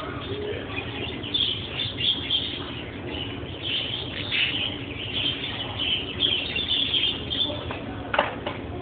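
Birds chirping and twittering throughout, many short high calls overlapping, over a steady low background din. There is one louder sharp call about eight seconds in.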